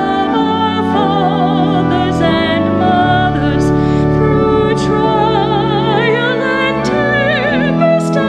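A woman singing solo with a wide vibrato, classical style, over a keyboard accompaniment holding long sustained chords.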